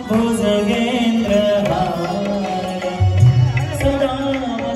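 Hindu devotional aarti singing with musical accompaniment, a melodic chant over instruments, with a louder, deeper part joining about three seconds in.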